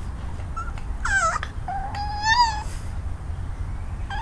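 Bulldog puppy whimpering: a short high whine about a second in, a longer whine that rises slightly at its end, and a brief third whine near the end.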